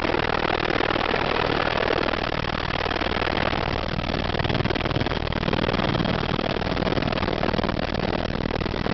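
The cabin noise of a Eurocopter AS350 AStar helicopter's single turbine engine and rotor in flight: a steady, dense rushing sound with a low, even drone underneath, not letting up at any point.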